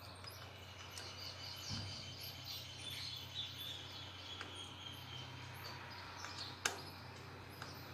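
Faint bird chirps over a low steady hum, with a soft knock about two seconds in and a single sharp click later on.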